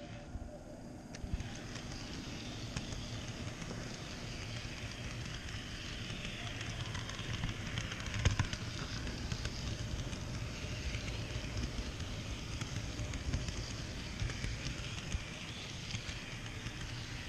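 HO scale model train rolling along sectional track, heard from a car in the train: a steady rattling rumble of wheels on rails with small irregular clicks, and one sharper click about eight seconds in.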